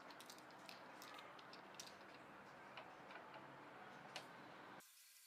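Faint, irregular small plastic clicks as coloured knob caps are pressed onto the mixer's potentiometer shafts. The clicks stop suddenly near the end.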